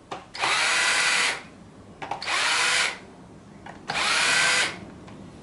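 Cordless drill-driver run in three short bursts, each about a second long, its motor speeding up and winding down each time, driving the gearbox-cover screws of a hedge trimmer back in.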